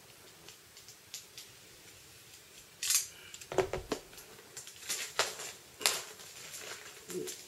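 Hands handling a vinyl record box set's cardboard packaging: a sharp scrape about three seconds in, then a dull bump and a run of clicks and rustles.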